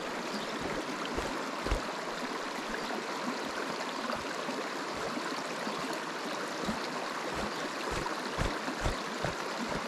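Small river's water rushing steadily over rocks, with a few brief low thumps near the microphone.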